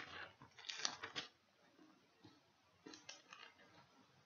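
Faint rustling of book pages being turned, in a few soft brushes: one at the start, a cluster about a second in, and another about three seconds in.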